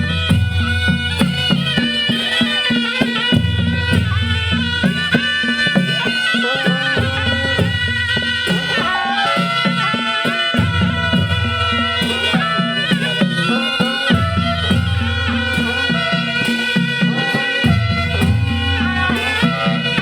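Traditional folk music: a wind instrument carries the melody over a repeating low drum pattern.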